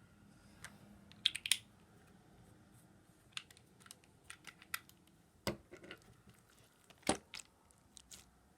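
Scattered light clicks and taps at irregular intervals: a quick cluster about a second in and two sharper ones later on.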